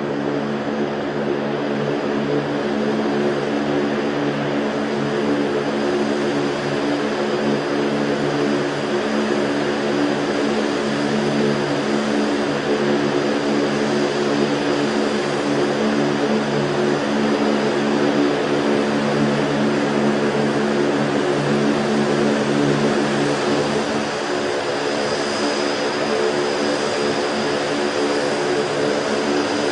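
V-22 Osprey tiltrotor running: its two turboshaft engines and proprotors make a loud, steady drone with a low pitched hum and a thin high whine over it.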